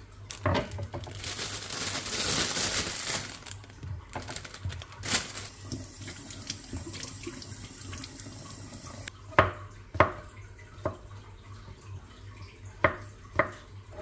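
Water running for a couple of seconds, then about five sharp knocks or clinks spread over the last few seconds.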